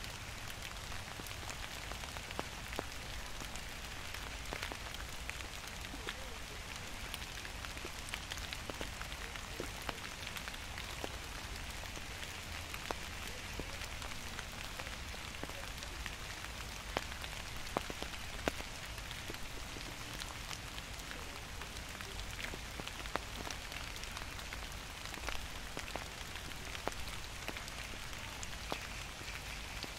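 Gentle autumn rain falling steadily: an even hiss with many separate drops pattering close by, over a faint low rumble.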